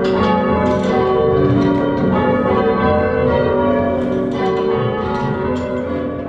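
A ring of five church bells rung in changes, the strokes following each other in an even, overlapping stream. The sound starts to fade about five seconds in.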